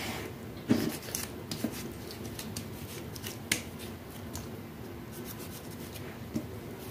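Serrated kitchen knife slicing through ripe tomatoes held in the hand, with a few sharp clicks as the blade comes through and pieces drop into a metal bowl; the loudest click is about three and a half seconds in.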